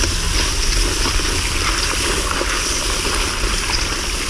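Garden-hose spray nozzle running into a bucket of live crawdads: a steady hiss of spray and splashing water, with a few faint clicks of the metal skimmer ladles stirring them.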